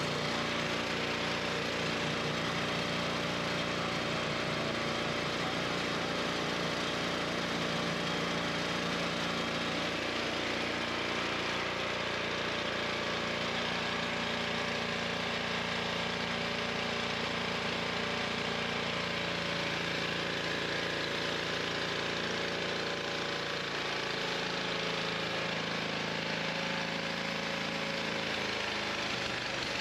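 Carburetted engine running steadily on the Thunderstorm plasmoid generator's bubbler feed; its note shifts slightly in the last few seconds.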